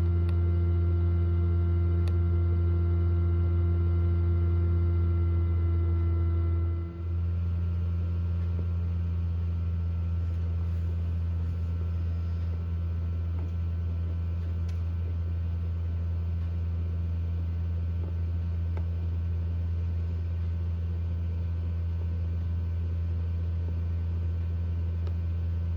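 Steady low hum of a Hovabator egg incubator's fan running, with a higher steady tone that stops about seven seconds in, where the sound briefly dips.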